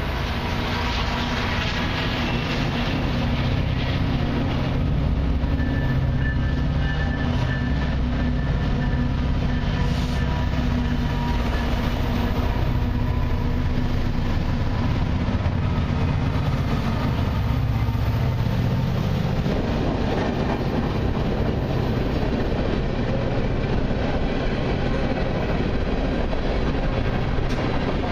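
CN diesel freight locomotives passing slowly, their engines droning as they approach and go by. After about twenty seconds the drone gives way to the rumble and clatter of the freight cars' wheels rolling over the rails.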